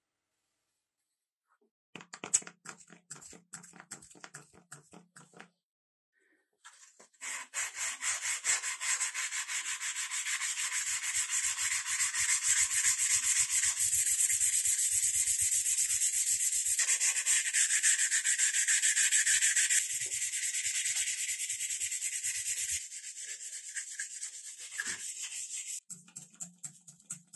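Sandpaper rubbed back and forth by hand over a steel axe head, a scratchy rasp. A few short strokes start about two seconds in; after a brief pause a long run of quick, steady strokes follows, growing lighter near the end.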